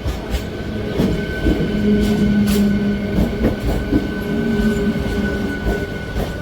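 Passenger train running on the rails: a steady rumble with irregular clicks over the track, and a held tone sounding through most of it.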